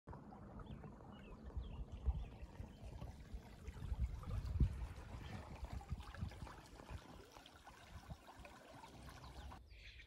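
Creek water flowing and trickling, faint and steady, thinning out near the end.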